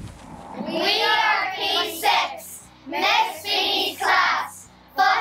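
Children singing in short phrases with brief gaps between them.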